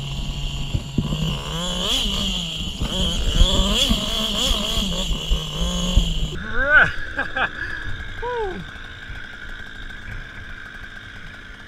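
85cc two-stroke motocross bike engine, a KTM SX85, running steadily under the rider. About six seconds in it drops back, and a few short revs rise and fall before it settles quieter.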